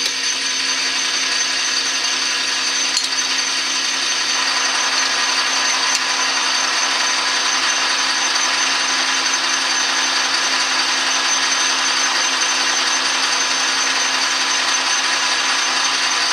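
Metal lathe running steadily with a whine of several steady tones, while a center drill in the tailstock chuck cuts into the end of the spinning bar to start a center hole for a live center.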